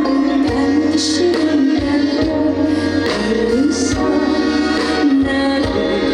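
A live trot song played loud over a PA: a held, gliding melody line over the backing track.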